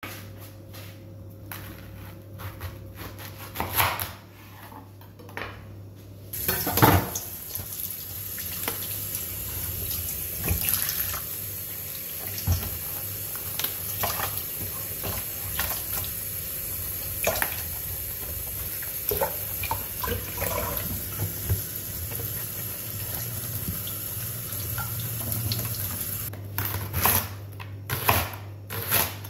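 A few scattered knocks, then a kitchen tap running into a stainless steel sink while a leek is rinsed under it. Near the end the water stops and a chef's knife slices through the leek onto a plastic cutting board in a quick run of sharp strokes.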